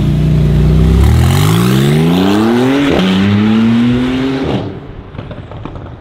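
Porsche 991 Turbo S twin-turbo flat-six through a straight-piped Capristo exhaust, accelerating hard: a steady note, then revs rising for about two seconds, a quick upshift about three seconds in, and a second rise before the sound drops away, with a few sharp pops near the end.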